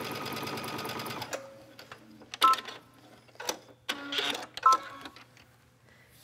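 Brother computerized sewing machine stitching a twin-needle hem at a steady run, stopping about a second in. A few sharp clicks follow, two of them with short beeps, as the machine is worked after the seam.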